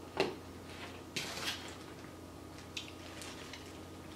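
Foil sandwich wrapper crinkling in a few short bursts as the sandwich is handled, the sharpest one right at the start and softer ones over the next three seconds.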